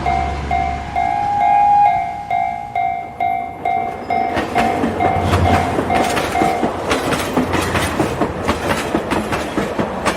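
Japanese railroad crossing bell ringing its even 'kan-kan' dings, about two a second, which stop about two-thirds of the way through. From about four seconds in, a passing train's wheels clatter fast and rhythmically over the rail joints.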